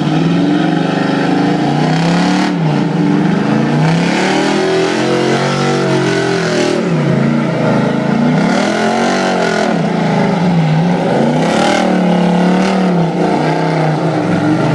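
Dodge Challenger's V8 engine revving hard while drifting, its pitch rising and falling over and over every second or two.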